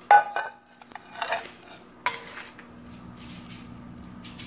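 A metal serving spoon clinking and scraping against a pan and a ceramic plate as food is dished up: a sharp clink with a short ring at the start, softer knocks about a second in, and another ringing clink about two seconds in.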